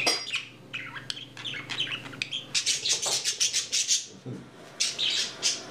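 Budgerigar chirping in quick short calls, thickening into fast chattering runs about halfway through and again near the end, with a brief flutter of its wings.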